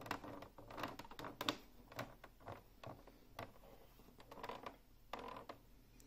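Unicomp Ultra Classic keyboard being handled and pressed on: faint, irregular clicks and creaks from its plastic frame and keys.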